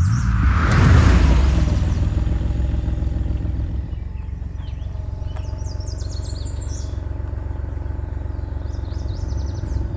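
A Porsche 930 Turbo's air-cooled 3.3-litre flat-six passes by, loudest about a second in with a falling pitch. It then runs on as a low rumble that fades. Birds chirp high above it several times.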